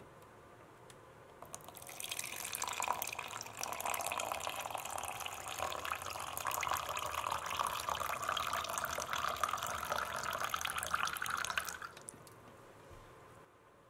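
Water poured in a thin stream into a silicone measuring cup, splashing and filling for about ten seconds, its pitch rising slightly as the cup fills. The pour starts about two seconds in and stops about twelve seconds in.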